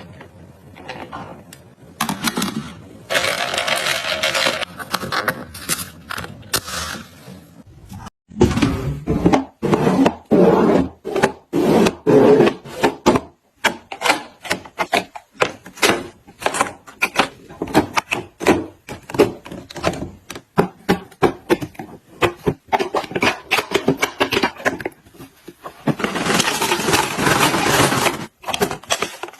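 Objects being handled: a dense run of clicks, knocks, rustles and scrapes, with busier rustling stretches a couple of seconds in and again near the end.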